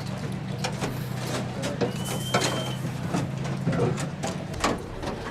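An engine idling with a steady low hum that stops near the end, under scattered knocks and clicks, with a brief high squeak about two seconds in.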